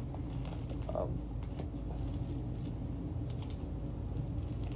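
Steady low room hum in a pause between speech, with faint scattered rustles and small clicks.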